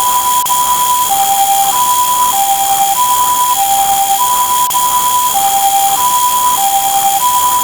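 Two-tone ambulance siren sound effect, swapping back and forth between a high and a low note, with a steady high-pitched whine over it.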